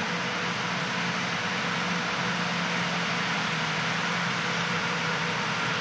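John Deere 8000R-series tractor and the Amadas peanut combine it pulls, running steadily while picking peanuts: an even mechanical drone with a constant low hum.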